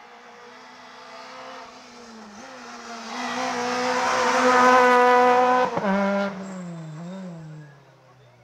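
Rally car's engine at high revs as it climbs past close by, building to its loudest about four to five seconds in. Near six seconds there is a sharp break and the pitch drops, and the engine fades as the car moves away up the road.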